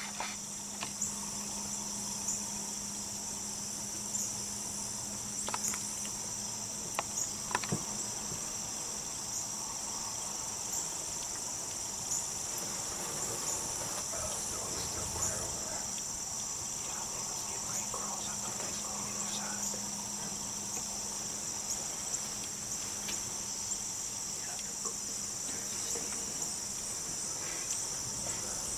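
Steady, high-pitched insect chorus that runs on without a break, over a low steady hum, with scattered sharp clicks and snaps.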